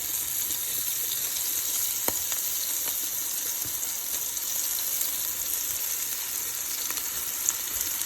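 Chicken, peppers and onions frying in a pan with olive oil, a steady high sizzle with a few sharp clicks of spattering or a utensil against the pan.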